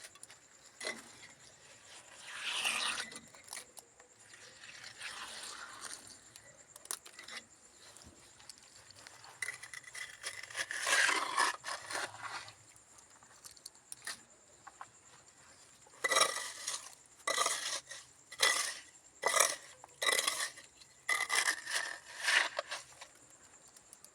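Mason's trowel scraping and spreading cement mortar on bricks, in scattered strokes and then a run of about six quick scrapes near the end.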